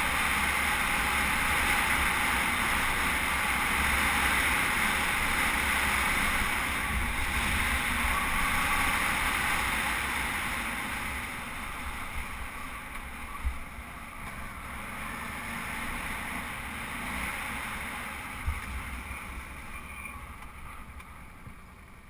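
Wind rush on a helmet-mounted camera while riding a Suzuki V-Strom 650 motorcycle on a sandy trail, with engine and tyre noise underneath. It dies down over the last several seconds, with two short thumps partway through.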